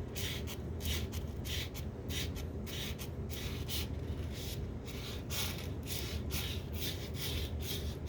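Rhythmic back-and-forth scraping strokes of a hand tool working on an old screwdriver, about two to three strokes a second, over a steady low hum.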